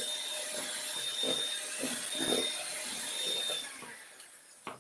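Electric hand mixer whipping egg whites in a stainless steel bowl: a steady high motor whine that stops about three and a half seconds in, then a single click near the end.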